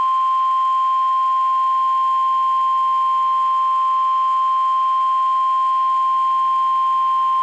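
NOAA Weather Radio warning alarm tone: a single steady 1050 Hz beep held without a break over a faint hiss. It is the signal that an emergency warning broadcast, here a severe thunderstorm warning, follows.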